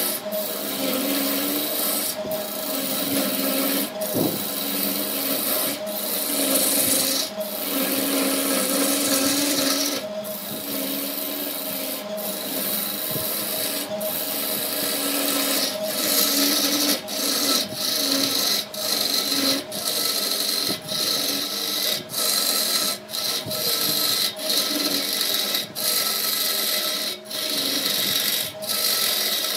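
Hand-held turning tool cutting a spinning glued-up wood vessel on a lathe: a continuous scraping hiss of the cut over the steady hum of the lathe, breaking off briefly every second or two between passes.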